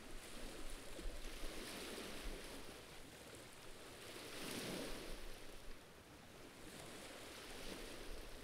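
Faint sea waves washing against a rocky shoreline: a soft hiss that swells and fades a couple of times, strongest about four to five seconds in.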